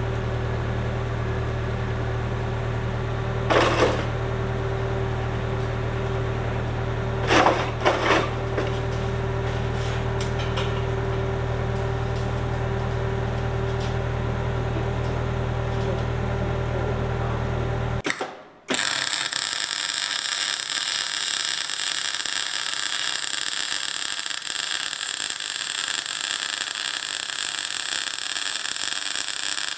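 A forklift's engine runs steadily, with two brief metal clanks about four and eight seconds in. After an abrupt cut about two-thirds of the way through, a MIG welder crackles and hisses steadily as it welds the steel bin.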